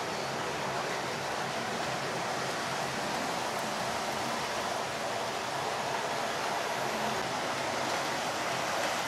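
Several model trains running together around a tabletop layout: a steady whirring rumble of their small electric motors and wheels on the track, with a faint low hum underneath.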